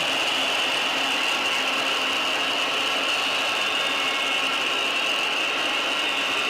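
Large crowd cheering steadily, a dense unbroken wall of noise with a shrill high edge.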